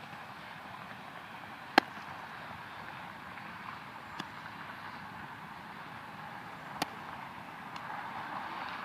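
A baseball smacking into a leather glove during a game of catch: two sharp, loud pops from catches near the microphone and a fainter one from a catch farther off. There is steady outdoor wind hiss underneath.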